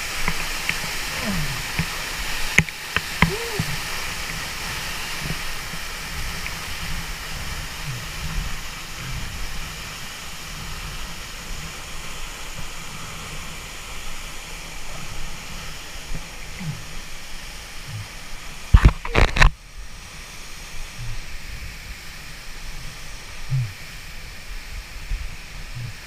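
Waterfall water rushing and splashing around a helmet-mounted action camera, a steady hiss with water washing against the camera. A couple of sharp clicks about three seconds in and a short burst of loud knocks about nineteen seconds in.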